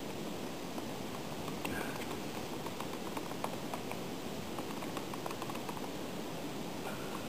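A plastic spoon stirring powdered mocha mix into coffee in a plastic cup, making many quick light clicks and taps against the cup, over a steady rushing noise.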